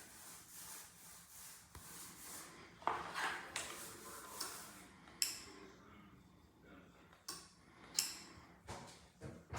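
A string of irregular knocks, clicks and short scraping sounds over a faint steady hiss, the sharpest about three, five and eight seconds in.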